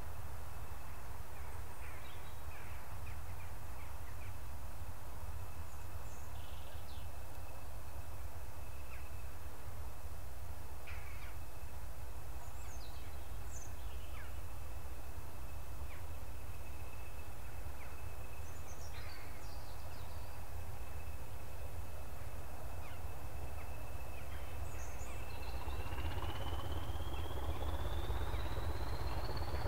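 Open countryside ambience: scattered short bird calls over a steady low rumble, with a thin high steady whine. About 25 seconds in, the whine starts to climb in pitch and a broad rushing noise grows as a train approaches.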